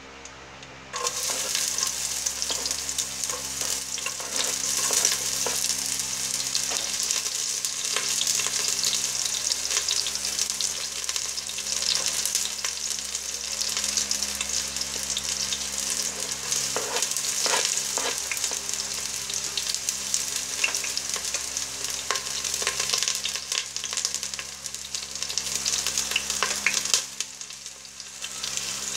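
Sliced red onions sizzling as they fry in hot oil in a stainless steel pot, starting suddenly about a second in as they hit the oil. The steady hiss carries scattered crackles, dips briefly near the end and then picks up again.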